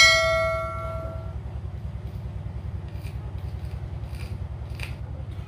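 A metallic clink that rings out for about a second, then a few faint clicks as a battery test lead is tapped against the terminal of a windshield washer pump motor. The motor stays silent because its coil is broken. A steady low hum runs underneath.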